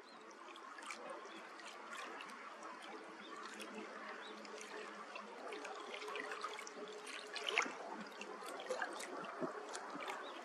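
Small ripples lapping and trickling against a rock at the water's edge, full of little splashes and drips. It fades in over the first couple of seconds, with one slightly louder splash about seven and a half seconds in.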